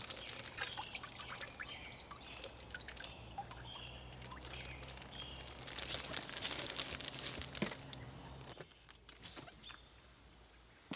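A thin plastic bag holding a whole processed chicken crinkling faintly with scattered small clicks as air is drawn out through a hard plastic straw. A low steady hum under it stops about three-quarters of the way through.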